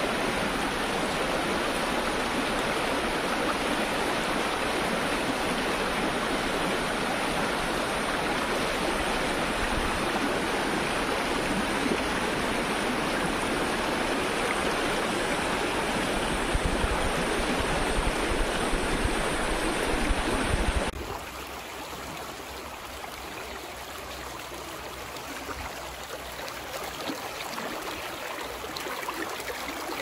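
Rushing water of a fast, shallow river rapid, a loud steady rush. About two-thirds of the way through it cuts abruptly to the quieter babble of a smaller rocky creek.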